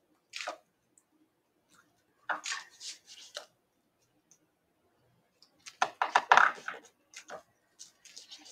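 Paper and card being handled and shifted on a cutting mat: short rustles and scrapes in several bursts, the loudest about six seconds in.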